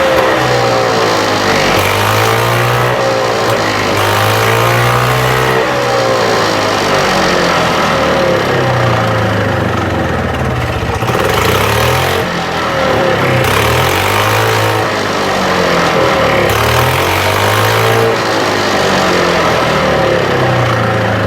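EZGO Marathon golf cart's two-stroke engine revved up and let back down repeatedly, roughly every three seconds, with the drive wheels off the ground and no load. The engine is running after a reed valve gasket repair and tune-up.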